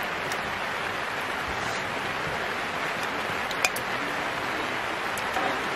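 Steady hiss of rain falling around the camp, mixed with meat sizzling on a griddle pan, with one sharp click about three and a half seconds in.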